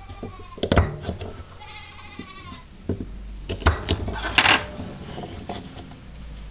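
A goat bleating outside: a faint call at the start, then one long wavering bleat about two seconds in. Sharp clicks and clatter of kitchen utensils and dishes come before and after it.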